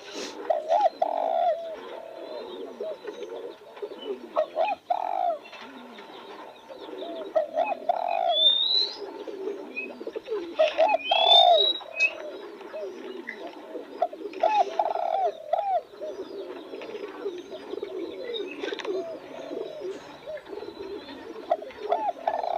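Spotted dove cooing, repeating its phrase every few seconds, with more cooing underneath. A few brief high rising chirps from another bird come near the middle.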